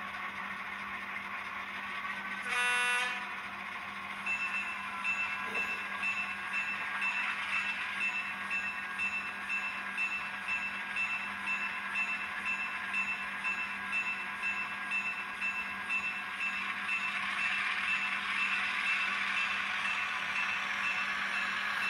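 Miniature diesel locomotive sound from an ESU LokSound V5 micro decoder in a Kato N scale E5A, played through its tiny speaker. The prime mover runs steadily, a short horn blast sounds about two and a half seconds in, and from about four seconds in a bell rings in an even repeating rhythm.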